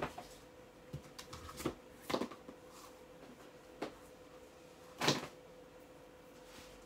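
Fabric sample books being picked up and set down, about half a dozen short knocks and rustles with the loudest about five seconds in, over a faint steady hum.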